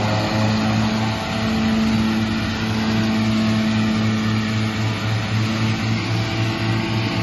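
New Holland tractor running a Pöttinger butterfly mower combination (front mower and twin rear disc mowers) cutting grass: a steady engine drone with an evenly pulsing low hum.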